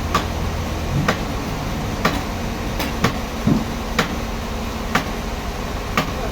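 Sharp ticks about once a second over a steady background hum.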